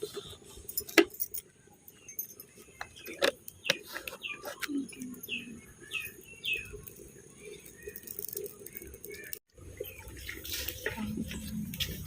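Small birds chirping in short, quick calls, with a few sharp clicks or knocks in between. After a brief dropout near the end, a steady low hum comes in under more chirps.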